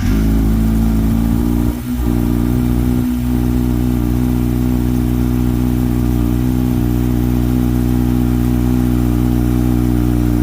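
Kawasaki Ninja ZX-6R 636 inline-four engine idling steadily just after being started, freshly filled with new oil, with a brief dip in level about two seconds in.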